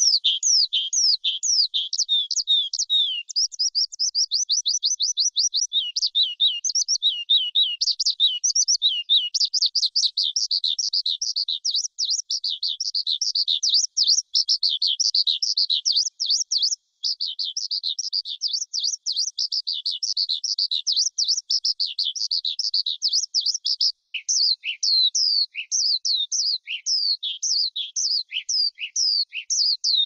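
Skylark singing a long, unbroken song of rapid high trills, chirps and warbles, with only a couple of brief breaks past the middle.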